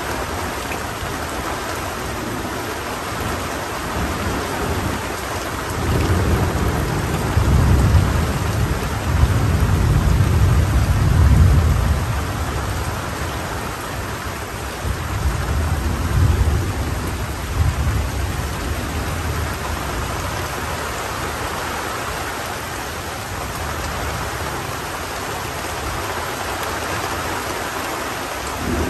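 Tropical rain falling steadily, with rolling thunder. The thunder swells in low about six seconds in and is loudest around eleven seconds, then rumbles again more weakly a few seconds later.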